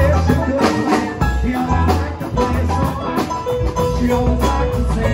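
Live band playing: drum kit with cymbals, driven by steady drum hits, together with electric guitars and a sustained bass line.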